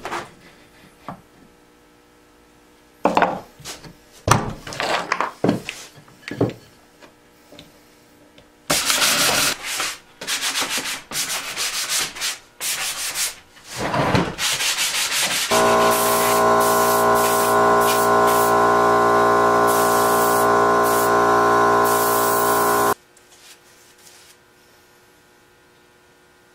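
Weathered barn wood being sanded by hand: quick, rough scrubbing strokes. Then a motor runs steadily for about seven seconds and cuts off suddenly.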